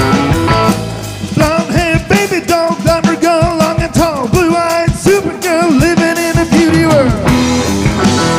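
Live rock band playing on electric guitars and drum kit. A wavering, bending lead melody rides on top from about a second and a half in until about seven seconds.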